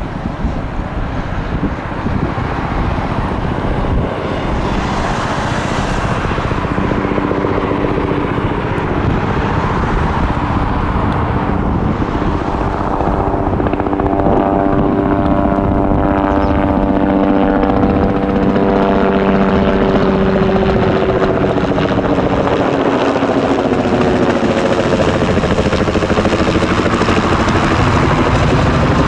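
Helicopter flying close by, its rotor and turbine drone growing steadily louder, with a hum whose tones slide in pitch as it passes.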